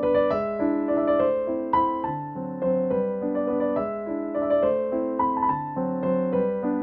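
Background solo piano music, notes and chords played in a steady flowing stream.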